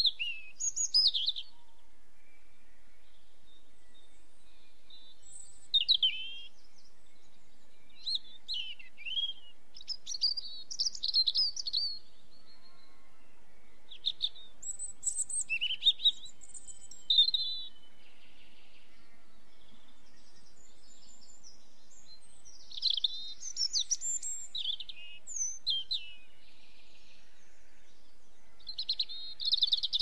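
Small garden songbirds singing in short, high-pitched, twittering phrases that come and go in scattered bursts.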